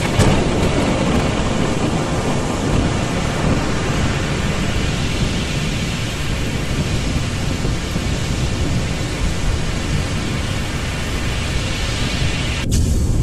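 Storm sound of a rough sea: a steady, loud rushing noise with a deep rumble underneath, dipping briefly near the end.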